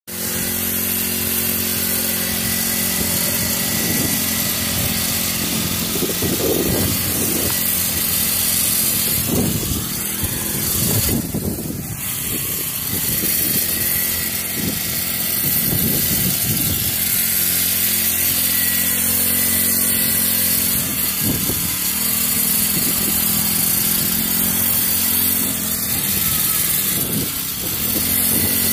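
Small gas-engine pit bike (mini dirt bike) running and being ridden, its engine revving up and falling back several times over a steady engine drone.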